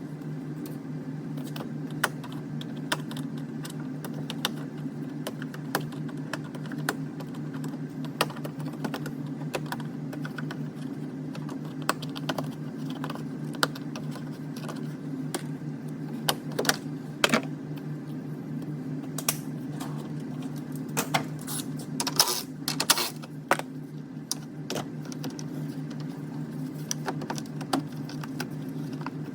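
Irregular clicks and taps, as of hand tools and parts being handled, over a steady low hum.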